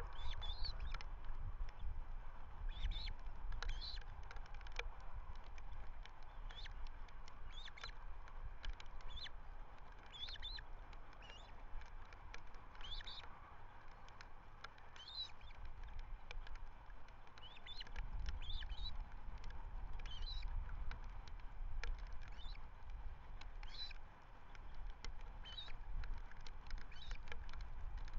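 Ospreys calling at the nest: short high whistled chirps repeated every second or two. Under them is a low rumble of wind on the microphone.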